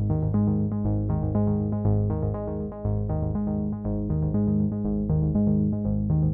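Background music: an electronic synthesizer track with a steady beat, repeating keyboard notes and a bass line.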